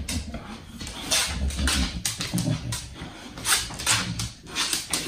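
English bulldog sniffing and snuffling as it noses around for hidden food, with a series of short, sharp sniffs at irregular intervals over a low rumbling breath.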